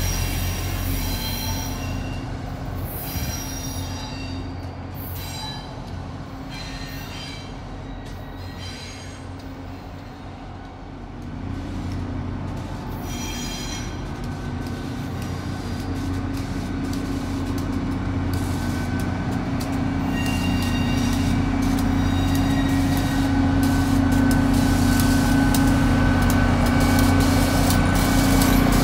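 Shore Line East train led by a CT Rail EMD GP40-3H diesel locomotive rounding the curve into the station. High-pitched wheel squeal fades out about halfway through. Then the locomotive's diesel engine hum grows steadily louder as it draws alongside.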